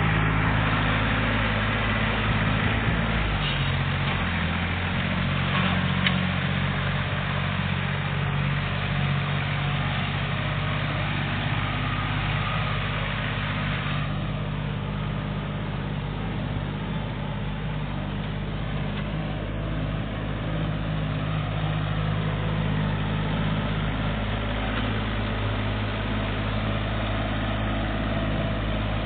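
Kubota L3400 compact tractor's three-cylinder diesel engine running steadily as it pulls a landscape rake across loose soil.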